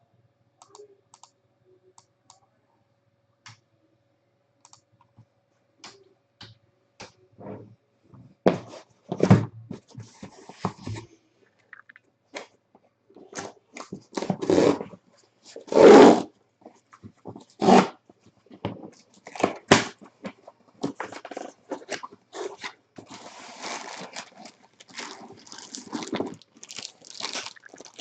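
A sealed box and its wrapping being torn open by hand: irregular tearing and crinkling of packaging, with a few loud rips starting about a third of the way in and steady crackling near the end.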